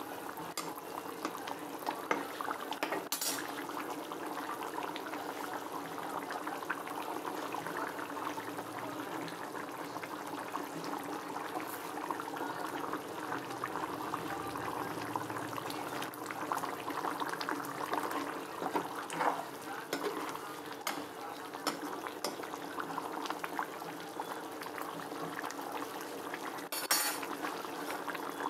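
Egg-and-potato curry bubbling and crackling at a simmer in a kadai, over a faint steady hum. A couple of sharp metal clinks against the pan, one about three seconds in and one near the end.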